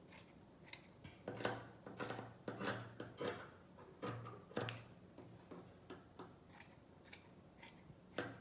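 Scissors snipping through a strip of cotton t-shirt fabric, a run of short snips about two a second, unevenly spaced, as the strip is cut lengthwise into strings.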